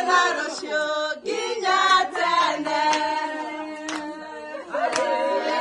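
Several women's voices singing together, with sharp hand claps about once a second in the second half.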